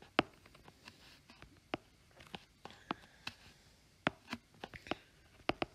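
Faint, sharp taps and clicks of a stylus on a tablet's glass screen during handwriting and erasing, about a dozen at irregular spacing.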